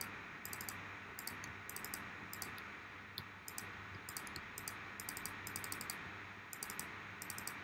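Faint computer mouse clicking, in short clusters of quick, sharp ticks, over a low steady hum of room noise.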